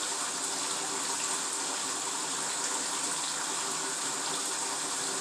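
Bath tap running steadily, water pouring into a bathtub as it fills: a constant, even rush.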